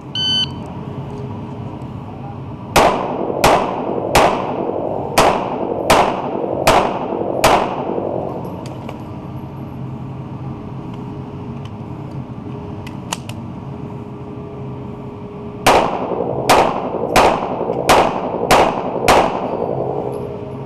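A shot-timer start beep, then a CZ-75 Compact 9mm pistol fired in two strings of about seven shots each, with a gap of roughly eight seconds between them. Each shot rings out with an echo off the indoor range's concrete walls.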